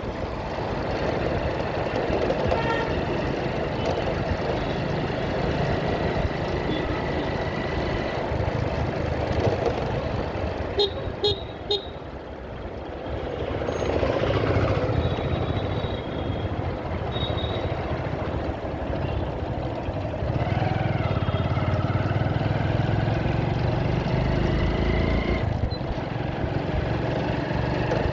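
Motorcycle riding in road traffic: steady engine and road noise, with three quick horn beeps about eleven seconds in. A deeper engine rumble swells in the second half.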